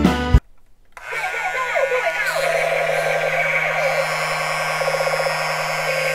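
Battery-operated toy MP5 smoke gun firing, starting about a second in: a small motor whirs steadily while the gun's speaker plays electronic sound effects made of swooping, gliding tones.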